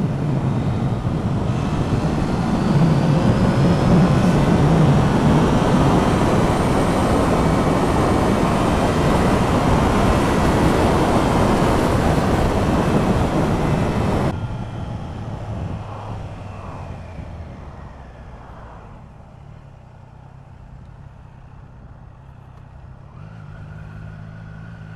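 Triumph Trident 660's inline three-cylinder engine pulling hard under heavy wind rush on the rider's helmet microphone during a fast run, with faint rising engine pitch. About fourteen seconds in the rushing noise drops off sharply and fades as the bike slows, leaving a quieter, steady engine hum at low revs near the end.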